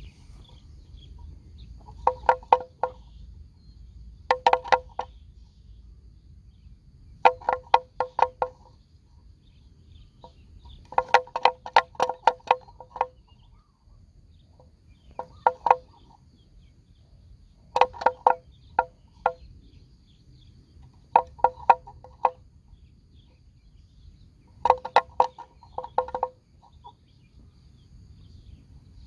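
A bell hung on a grazing water buffalo clonking in short bursts of quick, ringing knocks every few seconds as the animal moves its head.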